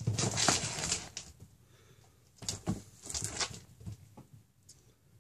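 A cat's paws and claws scrabbling and patting on a hard floor as it pounces, in two bursts of quick scuffs: one at the start and another about two and a half seconds in, with a few faint taps after.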